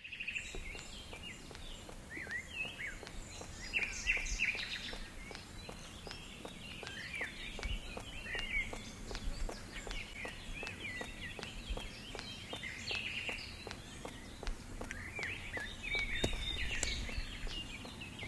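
Small birds chirping and twittering in short calls over a low outdoor background, with a regular patter of running footsteps, about two to three a second, through the middle.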